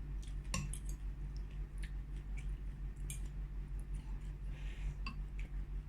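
Eating sounds: scattered small clicks and clinks of a spoon against a soup bowl and chewing, over a steady low hum.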